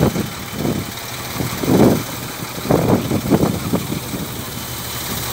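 An engine running, its sound swelling in uneven surges about once a second.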